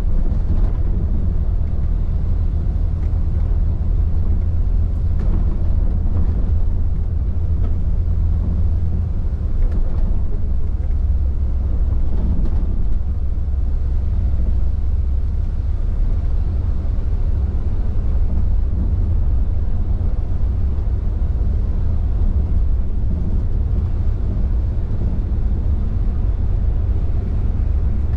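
Intercity coach cruising on a highway: a steady low rumble of engine and road noise, heard from inside the cab.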